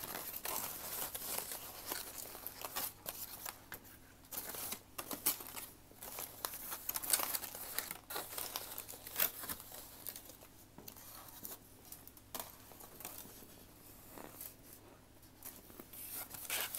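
Aluminium foil crinkling and rustling as it is handled, in many irregular crackles.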